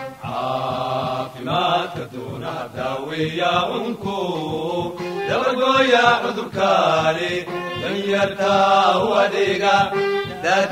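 Music: a chanted vocal song.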